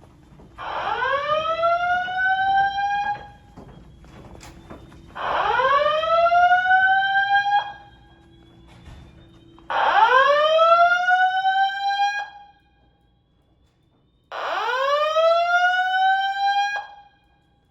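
Fire alarm sounding a slow whoop tone: four rising whoops, each about two and a half seconds long, repeating about every four and a half seconds.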